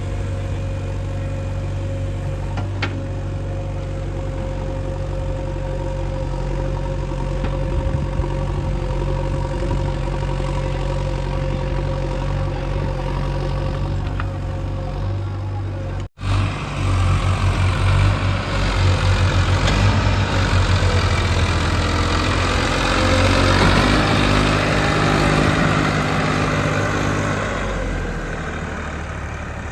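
JCB 3DX backhoe loader's diesel engine running: steady at first, then after a cut about halfway through, louder and rising and falling in pitch as it works under load.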